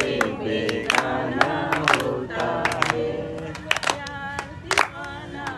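A group of people singing a song together without instruments, with hand claps through it.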